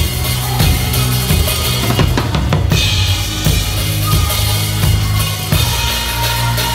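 Drum kit played hard in a live rock band performance, heard close to the kit: repeated kick and snare hits over steady low bass notes.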